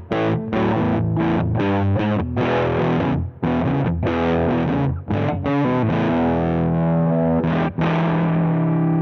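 Electric guitar played through a Danelectro Transparent Overdrive V2 overdrive pedal: distorted chords in short stabs with brief muted gaps, ending on a chord left to ring out from about eight seconds in.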